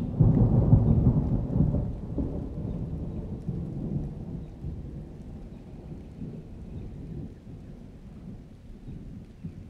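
Rolling thunder: a deep rumble that swells at the start, is loudest for about two seconds, then slowly fades away.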